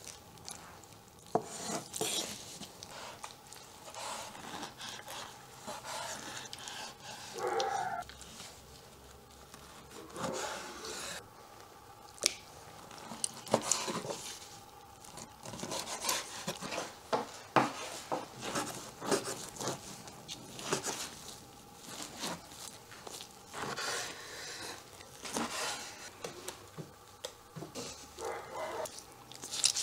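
Large knife slicing raw beef liver on a wooden cutting board: irregular sharp knocks as the blade strikes the board, between softer rubbing of the wet meat being handled.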